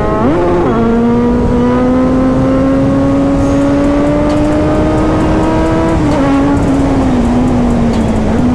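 Kawasaki Z900's inline-four engine pulling hard under throttle over a steady rush of wind noise. A quick rev blip comes at the start, then a long pull with the pitch slowly rising. The pitch dips a little about six seconds in and eases down toward the end.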